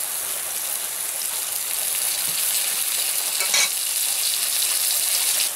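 Mustard oil poured into a hot kadai, sizzling steadily as it meets the hot metal, with one short click about three and a half seconds in.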